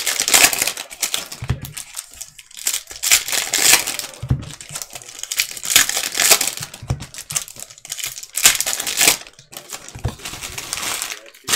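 Foil wrappers of basketball trading card packs crinkling and tearing as they are ripped open and handled, in repeated bursts, with a few soft low knocks in between.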